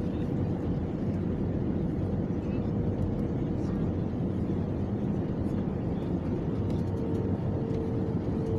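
Steady airliner cabin noise: the low drone of the engines and the airflow around the fuselage during descent, with a faint steady hum above it.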